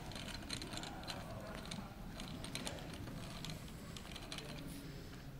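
Rapid, irregular light clicking and rattling of a small mechanism, thinning out toward the end.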